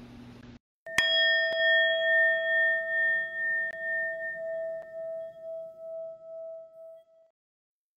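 A bell struck once about a second in, ringing with a slow wavering pulse and fading away over about six seconds.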